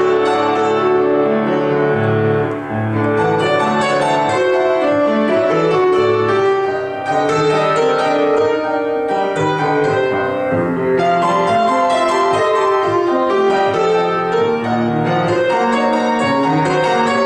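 Grand piano played solo: a continuous, busy piece with many quick notes over held bass notes.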